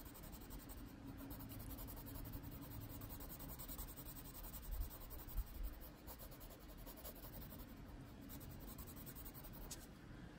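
Prismacolor colored pencil shading on paper: a faint, steady scratching of the pencil tip being stroked back and forth.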